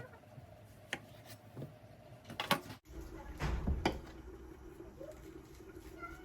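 Kitchen handling sounds: a few light knocks and clicks, then a short clatter about three seconds in, over a faint steady hum.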